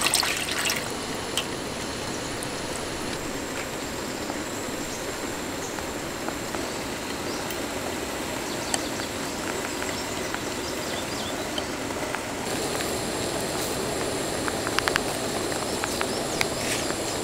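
A steady rushing noise with a few light clicks and taps scattered through it.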